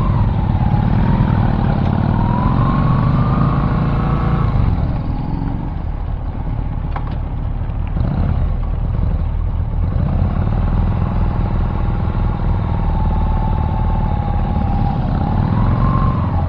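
A vehicle engine running under way over steady low road rumble. Its pitch rises, drops about four and a half seconds in, then rises again in the second half as it speeds up.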